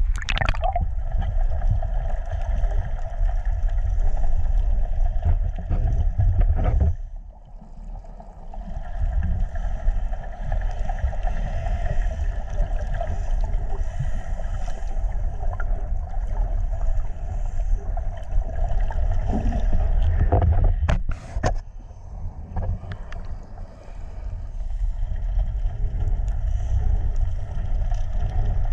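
Muffled water rushing over a camera held underwater, with a steady hum of a boat engine carried through the water. The water noise drops away briefly about seven seconds in and again a little after twenty seconds.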